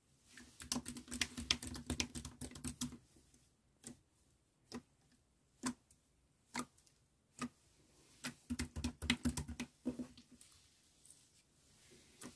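Clear jelly slime being pressed and kneaded by hand, giving a fast run of wet clicks and pops, then single sharp pops about once a second, then another quick run of clicks.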